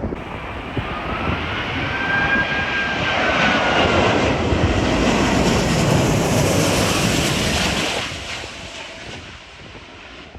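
Airliner flying past on landing: its engines rise to a loud rushing peak mid-way, with a high whine that bends in pitch, then fade off about eight seconds in.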